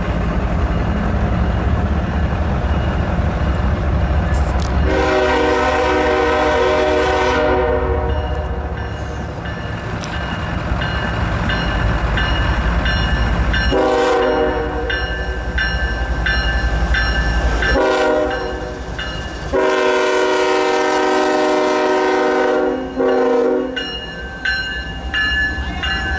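A GE ES40DC diesel locomotive approaches with its engine rumbling and sounds its multi-chime air horn four times: long, long, short, long, the pattern of the standard grade-crossing signal. As the locomotive passes, the freight cars' wheels click and ring on the rails near the end.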